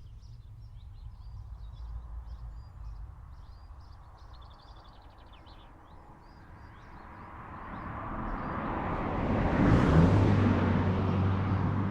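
Birds chirp faintly over a low outdoor rumble. Then a vehicle approaches and passes close by: its noise swells to a peak about ten seconds in, its tone drops as it goes past, and a low steady engine hum is left.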